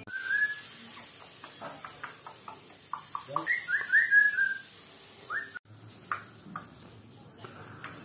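African grey parrot whistling and clicking: a short rising whistle at the start, a run of sharp clicks, then a quick series of short whistled notes about four seconds in, the loudest part, and one more rising whistle just after.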